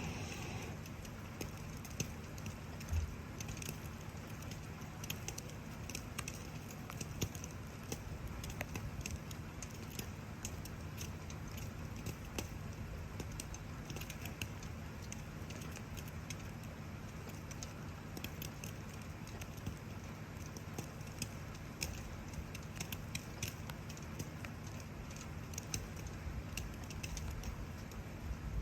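Wood campfire crackling, with irregular sharp pops and snaps, over the steady hiss of falling rain and a low rumble; one louder knock about three seconds in.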